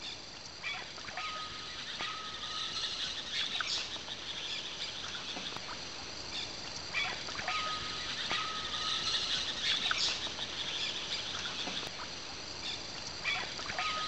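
Tropical rainforest ambience: a steady high insect buzz with birds calling over it in chirps, short glides and a two-part whistled note. The same run of calls comes round again about every six seconds.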